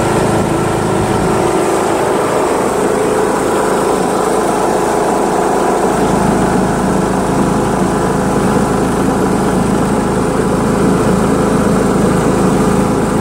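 John Deere L100 lawn tractor's 17 hp Briggs & Stratton OHV engine running steadily while the tractor is driven along the road.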